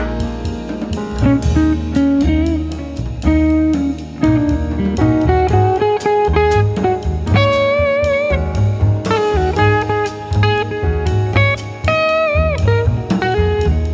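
Instrumental blues music: an electric guitar lead plays sustained notes that bend and waver, over bass and drums.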